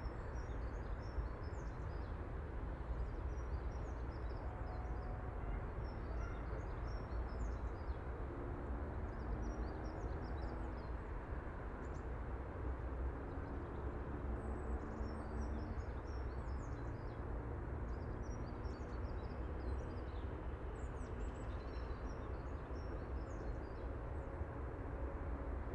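Open-air ambience: a steady low rumble of wind on the microphone, with small birds chirping on and off throughout. A faint low hum of distant traffic rises and fades in the middle.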